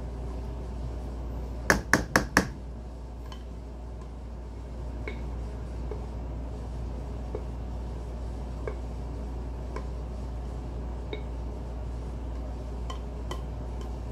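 Four quick clinks of a utensil tapped against a mixing bowl about two seconds in, knocking off cake batter, followed by a few faint ticks as the batter is emptied into a cake pan, over a steady low hum.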